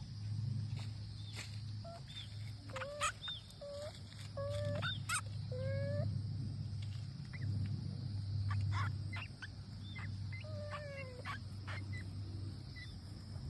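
Short animal calls, squeaks and chirps, repeated in irregular clusters over a steady low hum.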